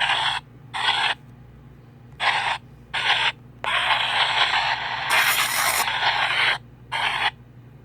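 PXB 07 spirit box sweeping the radio band: static and scraps of stations come in short bursts that cut in and out abruptly, with one longer stretch of static in the middle.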